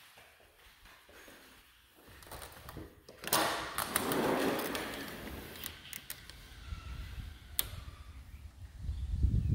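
Handling noise from a handheld phone being carried: rustling and low rumbling, with a few sharp clicks or knocks, and a stronger low rumble building near the end.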